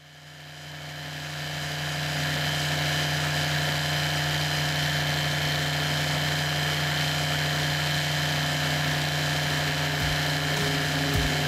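MW6 microlight's engine and propeller running steadily at a constant pitch, heard from on board the aircraft. The sound fades in over the first two seconds.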